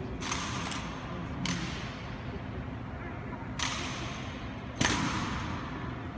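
Rifle drill by an honour guard: about five sharp claps and knocks as rifles are spun, caught and slapped, the loudest about five seconds in as the rifles come down, each echoing off the stone hall.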